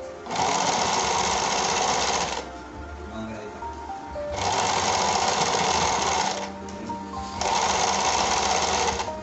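Household sewing machine stitching in three runs of about two seconds each, stopping briefly between them.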